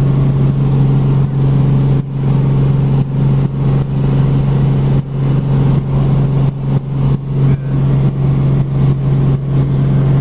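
Helicopter engine and rotor running with a loud, steady low drone.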